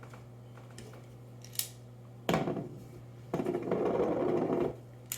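A steel utility knife being handled: a sharp click, then a louder knock about two seconds in, a rustling scrape lasting about a second, and another sharp click near the end.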